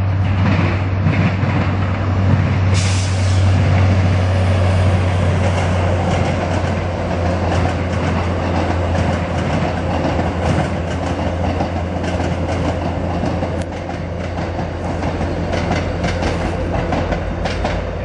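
MBTA diesel commuter rail train passing close by at speed, outbound from Boston. A low steady drone is strongest in the first few seconds, and the wheels click repeatedly over the rail joints as the bilevel coaches go by in the later part.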